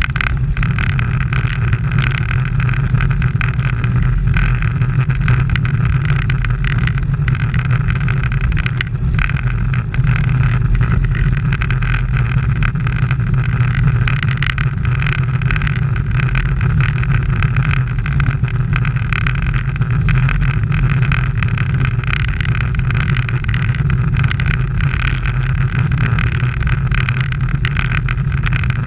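Steady wind rush and tyre rumble of a road bicycle ridden fast on rough asphalt, heard through a bike-mounted action camera's microphone; mostly a deep, even rumble.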